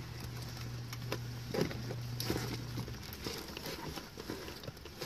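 Rustling and soft knocks of a storage bag and seatbelt webbing being handled, over a low steady hum that stops about three seconds in.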